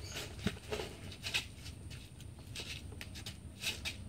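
Soil and a plastic bag being handled in gardening work: soft scattered rustling and scraping, with a few short clicks spread through.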